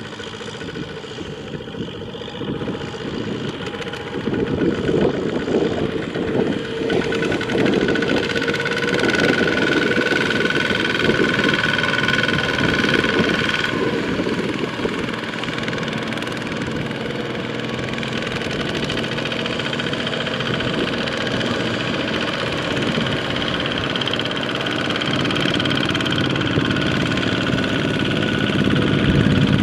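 Kubota two-wheel walking tractor's single-cylinder diesel engine running under load as it hauls a loaded trailer through the mud, with the diesel of a Kubota M6040 tractor running close behind it while it pushes. The engine noise grows louder about four seconds in.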